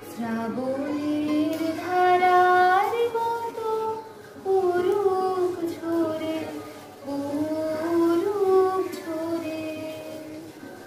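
A girl singing a Hindi song solo, holding long notes that slide from one pitch to the next, with short breaths about four and seven seconds in.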